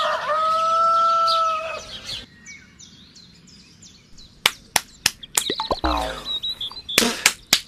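A rooster crowing, one long held note, followed by faint bird chirps. In the second half comes a string of sharp smacks.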